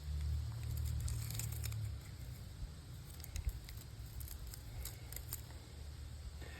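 Scattered light clicks and crackles of small scrap parts and fine copper wire being handled, over a low rumble that is strongest in the first two seconds.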